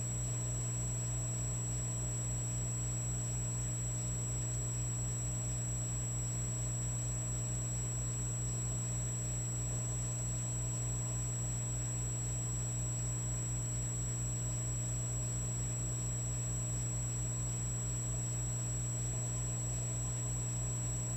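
Electric fireplace logs running with a steady electrical hum and buzz, a fast even low pulsing under it and a thin high whine.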